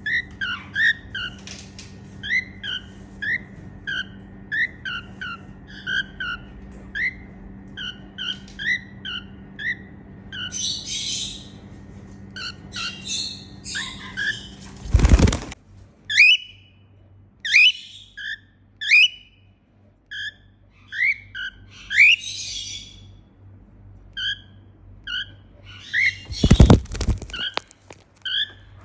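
Female cockatiel chirping: many short repeated chirps, often in quick pairs, with a few harsher, scratchier calls. Two loud brief noisy bursts break in, about halfway through and near the end.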